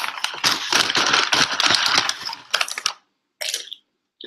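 Loud, dense crackling from potato chips being eaten close to the microphone, for about three seconds, then a shorter crackle near the end.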